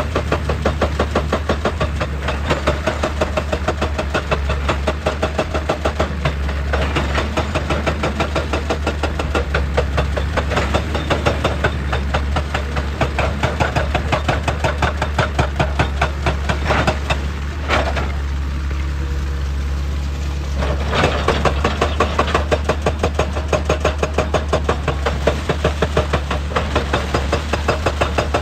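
Excavator-mounted hydraulic rock breaker hammering rock at a fast, even rate, about ten blows a second, over the steady drone of the diesel engine. The hammering eases for a moment a little past halfway, then picks up again.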